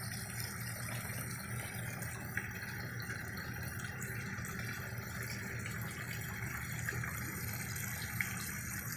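Steady rush of flowing water at an outdoor koi pond, with a low steady hum underneath.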